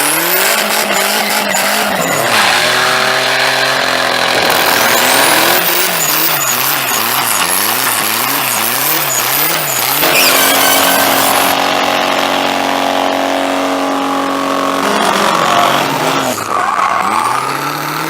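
Car engines revving hard, the pitch climbing and dropping and at one point wavering rapidly up and down, over the noisy squeal of sliding tyres, as in drifting. The sound changes abruptly several times, as from separate clips cut together.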